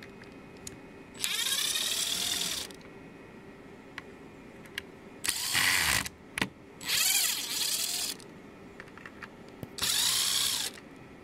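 Small electric screwdriver running in four short bursts, its motor whine rising and falling in pitch each time, as it backs out the housing screws of a DeWalt 12V cordless screwdriver. Faint clicks of handling come between the bursts.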